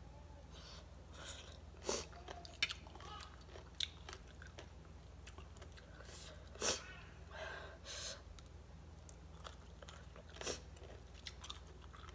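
Close-up chewing of mango salad eaten by hand: irregular wet mouth clicks and crunches, a few of them louder.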